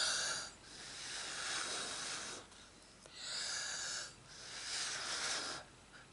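Breath blown in about four puffs of roughly a second each over wet acrylic pour paint, spreading it out in the bloom technique.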